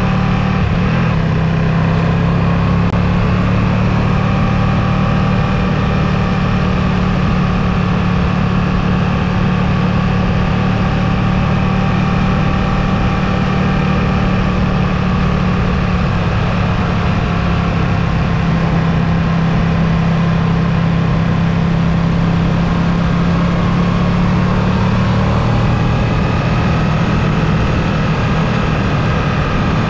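Ducati Streetfighter V2's 955 cc L-twin engine running steadily while the motorcycle is ridden, holding nearly constant revs with only slight changes in pitch, over a constant rushing noise.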